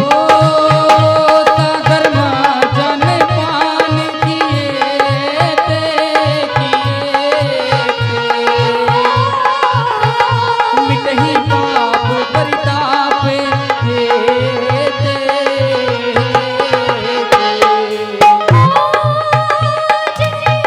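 Indian devotional music interlude: a hand drum plays a steady rhythm of about three strokes a second under a sustained, slowly gliding melody line.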